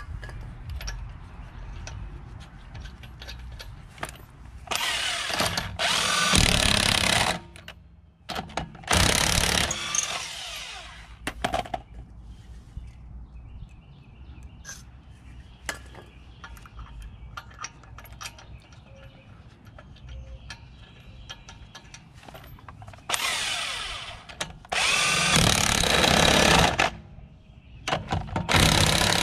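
DeWalt cordless impact wrench running lug nuts onto a wheel in about six bursts of one to two seconds each.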